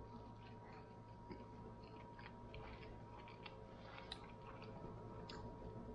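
Faint close-up chewing of a mouthful of lamb meatball, with many small wet clicks and smacks of the mouth and fingers scattered throughout.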